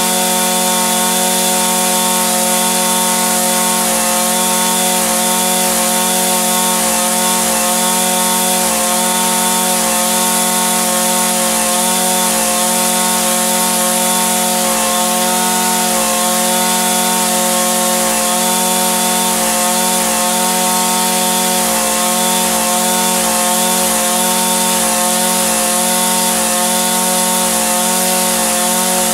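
Echo SRM-2620 string trimmer's small two-stroke engine running steadily at one unchanging speed, a continuous buzz with a constant pitch.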